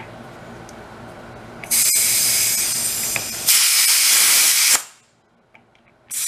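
Compressed air hissing through a tire chuck into a nearly flat fat bicycle tire. It starts about a second and a half in, breaks briefly, gets louder about halfway through, and cuts off sharply.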